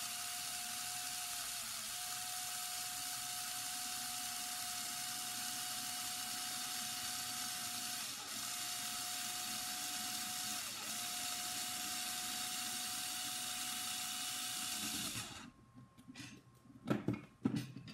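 Cordless drill/driver motor running steadily for about fifteen seconds while driving a screw into a 3D-printed plastic blaster part, its pitch dipping briefly three times as it loads up. The motor then stops and a few knocks follow near the end.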